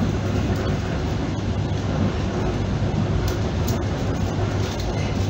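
ER9P electric multiple unit running at speed, heard from inside the passenger car: a steady rumble of wheels on rail with a low hum under it.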